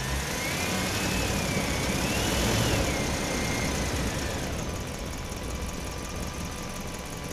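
A motor vehicle engine running, growing louder and then fading, with a whine that rises, dips, rises again and falls away in pitch.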